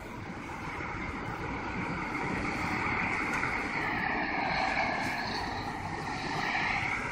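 Street traffic: vehicle engine and tyre noise, swelling over the first few seconds and then holding steady.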